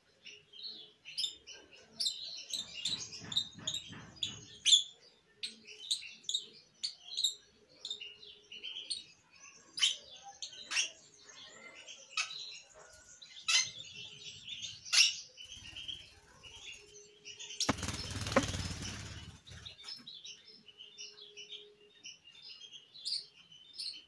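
Young green parakeet chicks chirping over and over in short, high calls while held in the hand, with a burst of wing flapping lasting a couple of seconds about three quarters of the way through.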